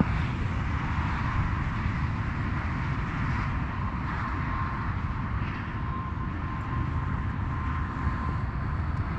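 A steady low rumble with a hiss over it, and a faint thin steady whine running through it.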